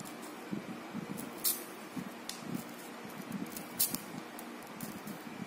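Small carving knife cutting into firm watermelon rind: a few short crisp slicing strokes, the loudest about one and a half and about four seconds in, over a low background rumble.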